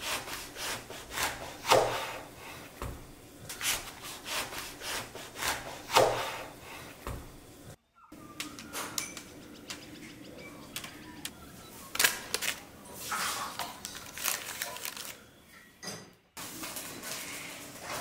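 Knife slicing through a grapefruit on a wooden cutting board: a string of crisp cuts and knocks against the board, with the sound breaking off abruptly twice.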